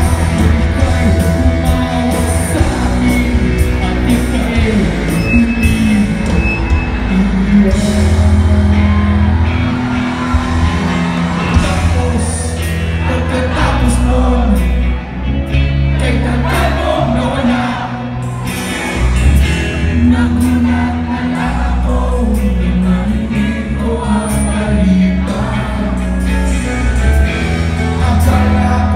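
Live rock band performing: a male lead vocalist sings into a microphone over the band, with a heavy bass and shouts from the crowd.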